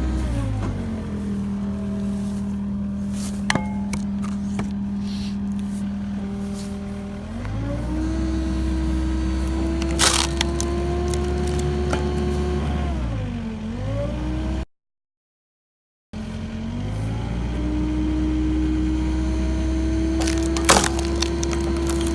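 Skid steer engine running under hydraulic load from a 45-ton log splitter, its pitch falling and rising as the ram is worked, with sharp cracks of knotted green wood splitting, the loudest about ten seconds in and near the end. The sound cuts out completely for about a second and a half midway.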